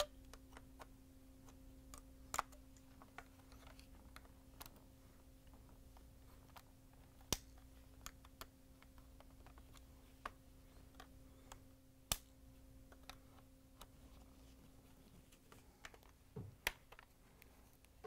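Scattered light plastic clicks and taps as a small flathead screwdriver pries the plastic locking tabs of a Bosch dishwasher control module loose, with about four sharper snaps standing out. A faint steady hum sits underneath.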